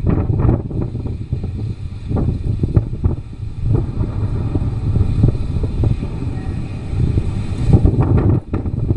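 Snowstorm wind buffeting the microphone: a loud, gusting low rumble that swells and drops, dipping briefly near the end.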